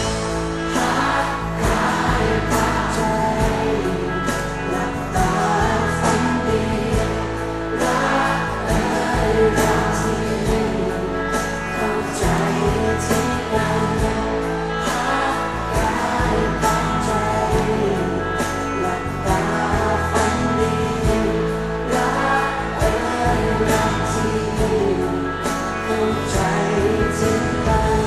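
A live band and singers performing a Thai pop love song, several voices singing together over a steady beat.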